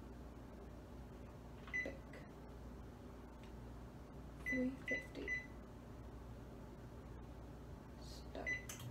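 Short electronic beeps at one pitch: one about two seconds in, three in quick succession about halfway through, and one near the end. Light knocks come with them, over a steady low hum.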